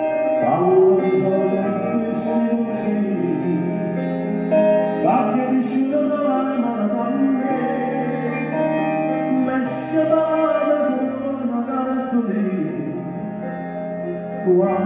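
Male voice singing a Neapolitan song live over piano accompaniment, with long held notes.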